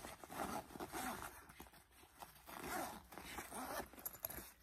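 A backpack's front-pocket zipper being pulled open in a few short rasps, with the fabric rustling as it is handled.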